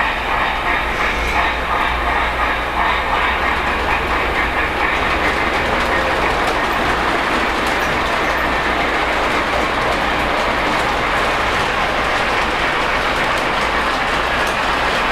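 Lionel LionChief Plus 2.0 O-gauge Berkshire steam locomotive and its train running steadily around the layout's track: wheels rolling with a rhythmic clickety-clack.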